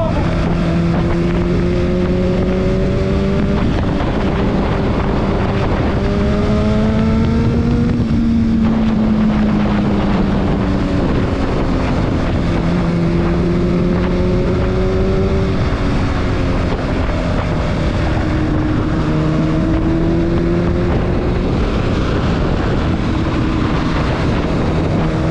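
Honda CBR1000RR's inline-four engine running at freeway cruising speed, about 100 km/h, with steady wind noise on the microphone. The engine note climbs a little, drops back about eight seconds in, and then rises and falls gently a few more times.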